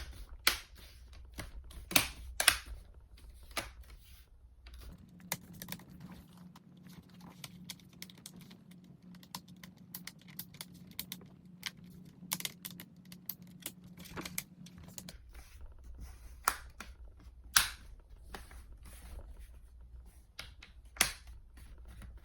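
Plastic screen bezel of a laptop being pressed back onto the lid, its clips snapping into place in a series of sharp clicks and taps at uneven intervals. A faint low hum runs through the middle stretch.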